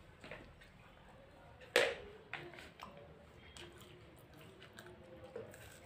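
Light clicks and taps of plastic forks against plastic plates as children eat, with one sharper knock about two seconds in.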